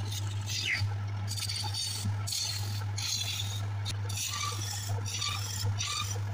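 Small wood lathe running with a steady low hum while a hand-held gouge cuts the spinning wooden goblet blank, the scraping cutting noise coming and going in repeated strokes as shavings come off.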